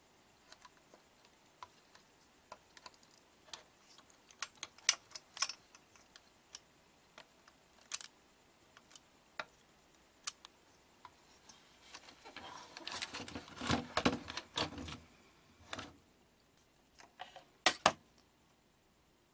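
Light clicks and taps of a soldering iron tip working the solder pads on a TV circuit board while a blown electrolytic capacitor is desoldered. A denser stretch of scraping and handling noise comes about two-thirds of the way in, as the board is handled and the capacitor is pulled free, then a couple of sharp clicks.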